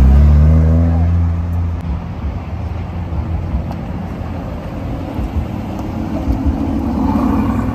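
Mitsubishi Lancer Evolution IV's turbocharged four-cylinder engine pulling away, loudest at the start and fading over about two seconds. From about five seconds in, an Aston Martin DB11 Volante's engine rises as the car moves off, strongest near the end.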